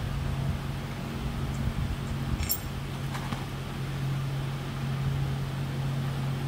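A steady low hum, with a single bright metallic clink about two and a half seconds in and a fainter tick just after: steel valve spring retainers being handled at the cylinder head.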